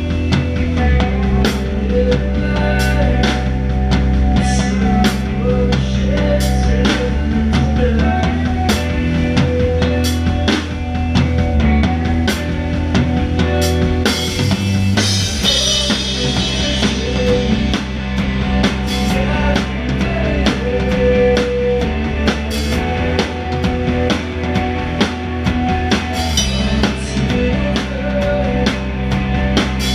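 Live rock band playing, the drum kit loudest: fast kick, snare and tom hits with cymbals over held notes from the rest of the band. A cymbal crash washes over it about halfway through and again near the end.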